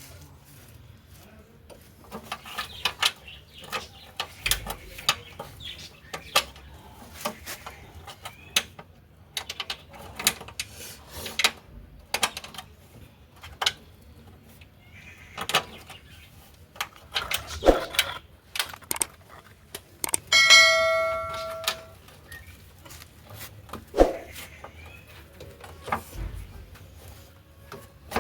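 Scattered clicks and clanks of metal tools and parts being handled. About twenty seconds in, one bell-like metallic ring sounds for a second or so, the loudest sound, and a sharp knock follows a few seconds later.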